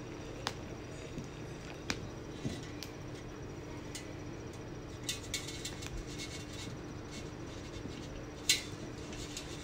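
A steady low hum with a few faint, scattered clicks, a brief patch of small crackles about five seconds in, and a sharper click about eight and a half seconds in.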